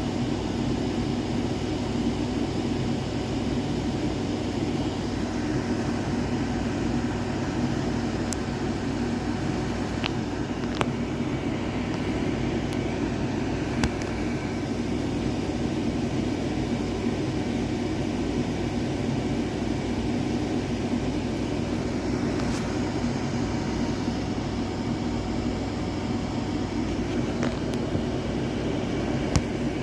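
Steady low mechanical rumble and hum, unbroken throughout, with a few faint clicks.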